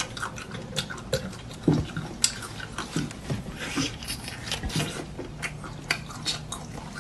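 Close-up eating sounds: wet mouth noises, short squelches and many scattered small clicks of chewing and handling food.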